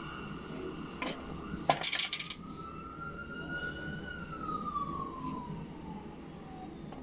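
A siren wailing in one slow rise and fall of pitch. About two seconds in there is a quick cluster of sharp clinks, the loudest sound here.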